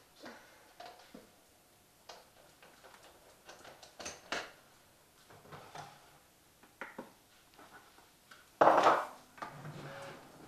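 Kitchen handling noises: scattered light clicks and knocks of dishes and utensils being moved, with one louder clatter near the end.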